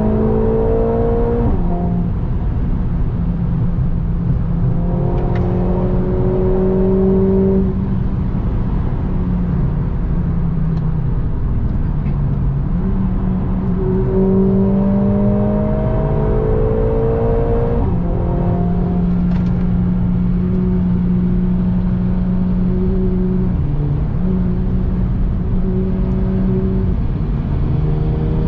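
Mercedes-AMG A45 S's turbocharged 2.0-litre four-cylinder, heard from inside the cabin under hard acceleration on track. The engine note rises through each gear and drops sharply at each of several upshifts, over steady road and tyre noise.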